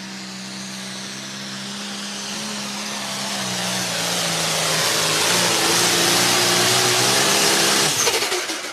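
John Deere 4010 diesel pulling tractor at full throttle under load as it drags the sled down the track, steadily growing louder. About eight seconds in the engine note cuts off sharply and the sound drops away as the pull ends.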